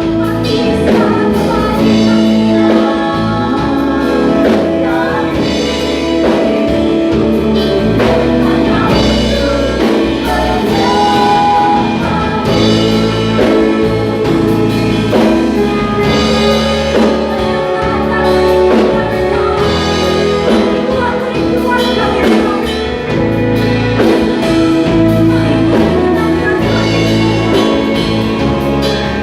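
Live worship music: singers backed by a band with drums, playing continuously.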